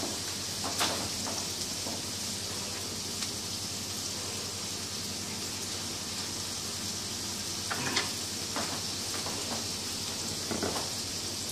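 Hamburger patties sizzling steadily in a frying pan, a constant hiss. A few brief knocks of a knife and utensils come through, about a second in, near eight seconds and around ten and a half seconds.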